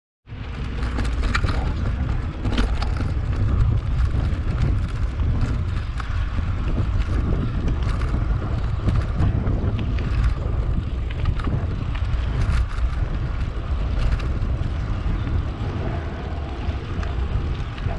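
Wind buffeting the microphone of a camera on a moving electric mountain bike, a steady low rumble, with scattered clicks and knocks from the ride over rough ground.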